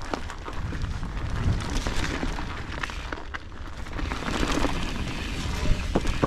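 Mountain bike descending a muddy dirt trail: wind buffeting the camera microphone as a low, uneven rumble, with tyre noise and scattered knocks and rattles from the bike over bumps.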